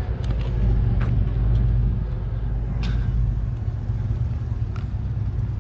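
Steady low rumble of a vehicle driving, heard from inside, with a few faint clicks.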